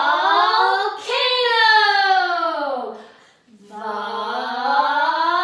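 A woman and a child chanting a long, drawn-out "volcano" together, the pitch climbing and then sliding down, twice: the first call fades about three seconds in and the next rises again straight after.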